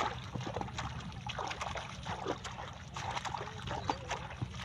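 Pond water splashing and trickling: a run of small, irregular splashes.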